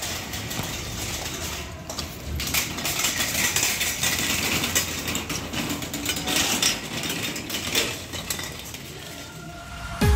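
Wire shopping trolley rattling and clattering as it is pushed across the floor, louder from about two seconds in and easing off near the end.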